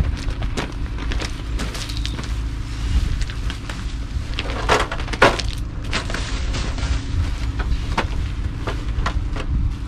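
Wind buffeting the microphone, with scattered knocks and clatter as a heavy outboard sailboat rudder is carried and lifted toward its stern fittings; the two loudest knocks come close together about halfway through.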